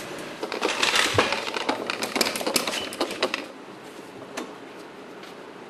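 A rapid, irregular clatter of clicks and knocks, like handling hard parts or tools, for about the first three and a half seconds. It gives way to a quieter steady hiss with a single knock.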